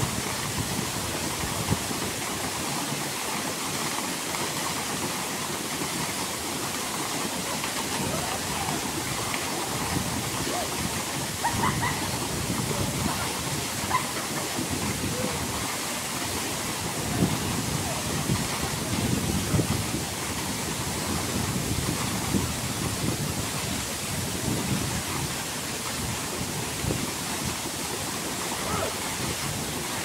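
A strong waterfall pouring over rock into a pool: a steady, unbroken rush of falling water.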